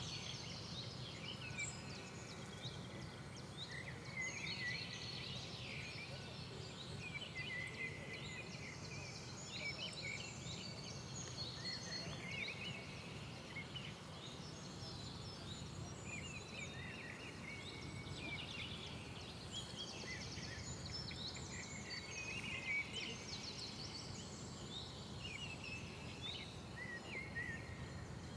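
Songbirds chirping and trilling, many short calls overlapping, over a steady low rumble.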